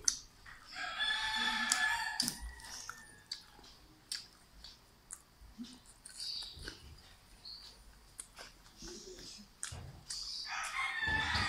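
A rooster crows twice, once about a second in for about two seconds and again near the end, over scattered clicks and crunches of eating.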